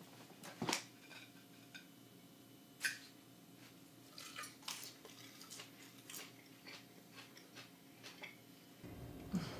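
A man chewing mouthfuls of raw spinach salad: irregular crunchy clicks and smacks, the sharpest about a second in and again about three seconds in, with now and then a clink of cutlery on the plate.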